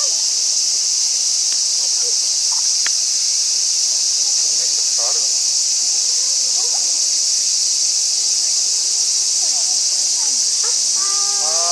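Steady, high-pitched drone of an insect chorus, unbroken throughout, with faint voices in the distance now and then.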